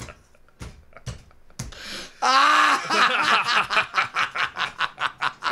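Loud, hearty laughter in quick repeated pulses, breaking out about two seconds in after a few faint knocks.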